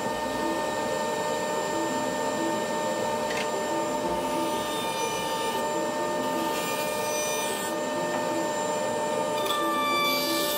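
Stationary woodworking machine running steadily with a constant whine as a walnut board is pushed across its table into the cutter.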